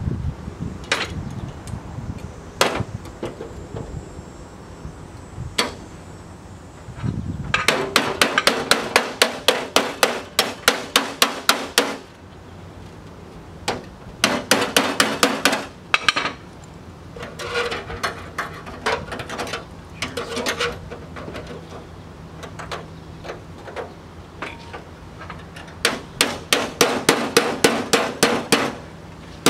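Hammer striking a sheet-steel patch panel to fold its edge over. There are a few single knocks at first, then runs of rapid blows of about five a second, with short pauses between the runs.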